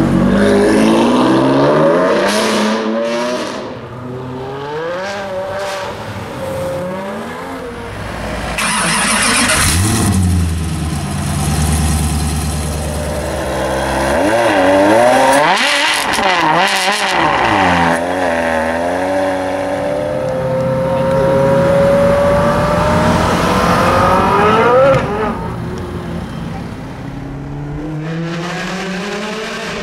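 Several high-performance car engines in turn, revved hard and accelerating, the engine pitch repeatedly rising and falling, with one long rising pull through the revs late on.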